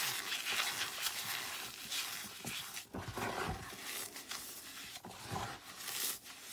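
Baked floral foam crunching and crumbling as hands squeeze it and press it into a pile of dry, powdery fragments. There are a few dull low thumps about three seconds in and again near the end.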